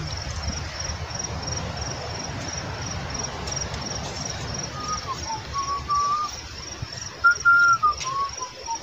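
An insect, likely a cricket, chirping steadily at about two high chirps a second, over a low rumble. In the last few seconds a few short whistled notes rise and fall.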